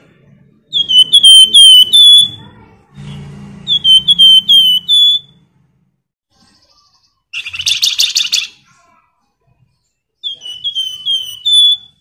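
Caged flamboyan songbird singing: three short phrases of four or five quick, high, downslurred whistled notes, and about halfway a harsh buzzy rattle lasting about a second.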